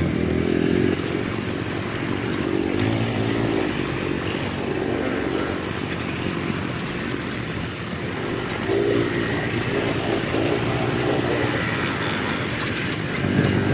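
Small motorcycle engine running over a rough dirt track, its pitch rising and falling now and then as the throttle opens and closes.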